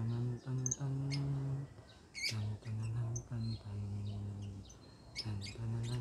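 Lovebirds giving short high chirps, over a low, steady-pitched hum that starts and stops about seven times in bursts of under a second.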